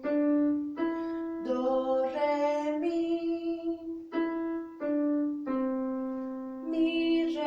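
Piano playing single notes that step up and back down through Do, Re, Mi around middle C, each note struck and held about a second. A woman's voice sings along on some of the notes.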